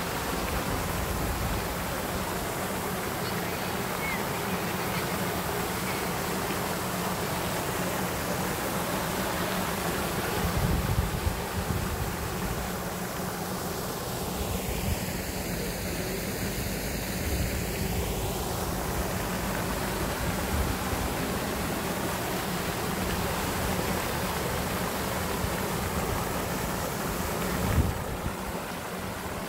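Pond spray fountain running, its falling water giving a steady splashing hiss. Brief low rumbles come about eleven seconds in and again near the end.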